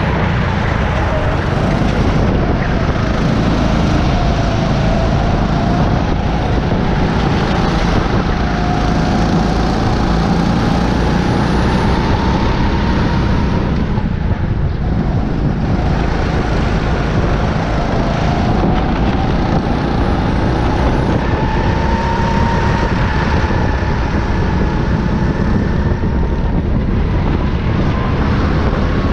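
Go-kart engine running under racing load, its pitch rising and falling as the kart brakes and accelerates through corners, over a dense rumble of engine and wind on the onboard microphone.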